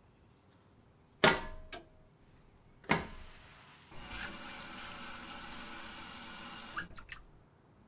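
Bacon and eggs sizzling in a frying pan: a sharp click and a knock, then about three seconds of steady sizzling that stops with a few quick clicks.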